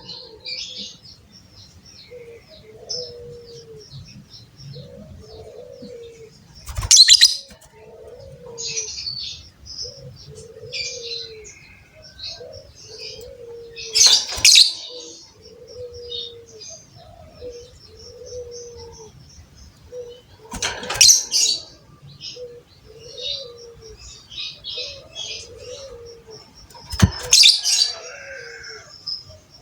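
Caged birds calling together: a dove's low coo repeats about once a second under rapid high-pitched lovebird-type chirping. A loud, shrill burst of calls breaks in about every seven seconds, four times.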